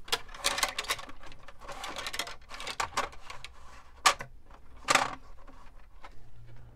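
Handling noise of control rods being worked in a balsa kit-plane fuselage: scraping and rubbing with scattered sharp clicks, the loudest two about four and five seconds in.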